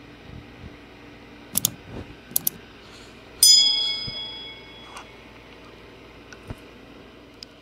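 Subscribe-button animation sound effect: a few quick mouse clicks about a second and a half in, then a bright notification-bell ding that rings out and fades over about a second.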